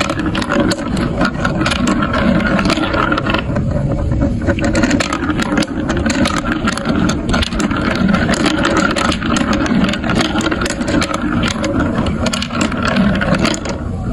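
Marbles rolling and clattering through a marble run built of building blocks: a continuous rolling rumble with many irregular clicks as marbles hit the track pieces.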